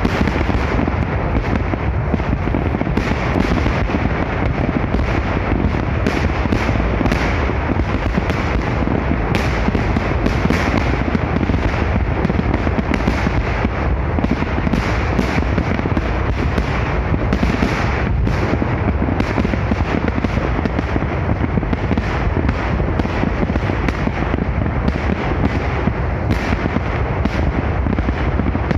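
Large fireworks display going off in a dense, unbroken barrage, many salvos bursting and overlapping so the bangs merge into a continuous rumble.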